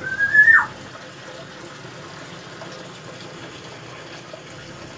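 A white-rumped shama gives one short whistled note at the very start, rising and then dropping sharply, over a steady background hiss.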